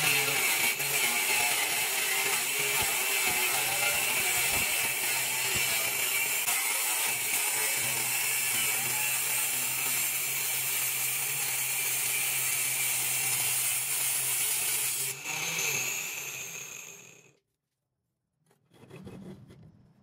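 Homemade sliding table saw's circular saw running steadily with a low hum and a high whine, dying away about three-quarters through.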